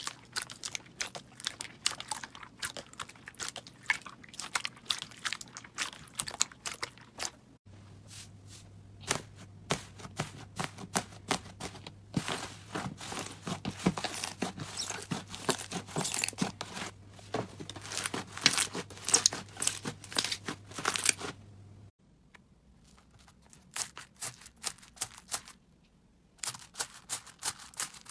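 Slime being pressed and squished by hand, giving a dense run of crisp crackles and pops. The crackling gets busier after about eight seconds, then changes again after about twenty-two seconds.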